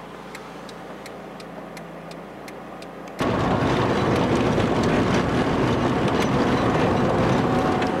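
Inside a Chevrolet Niva: the turn-signal relay ticking about three times a second over the quiet engine idling, then about three seconds in a sudden switch to loud engine and road noise of the car driving at speed.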